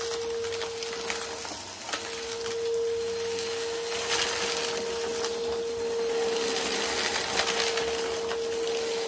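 Bissell upright vacuum cleaner running with a steady high whine over carpet. The small plastic bits and fluff it sucks up crackle and click through the nozzle. The whine drops out briefly about two seconds in.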